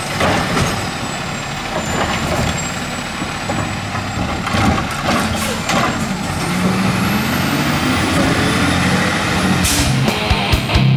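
Peterbilt 320 garbage truck with a Dadee Scorpion automated side-loader body: the diesel engine runs while the hydraulic arm sets the emptied cart down with a few clunks. About six seconds in, the engine note rises as the truck pulls away.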